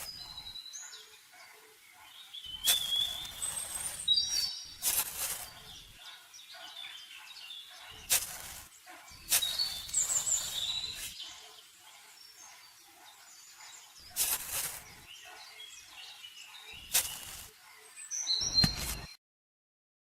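Small birds chirping, short high calls repeating, with several brief bursts of rustling noise; the sound cuts off abruptly near the end.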